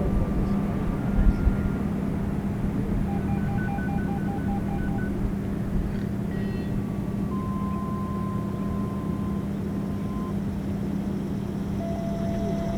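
Whelen WPS-2805 electronic siren sounding its steady Alert tone from a distance, one unbroken tone over a low rumble. A faint rapid beeping, about four beeps a second, comes in about three seconds in and stops two seconds later.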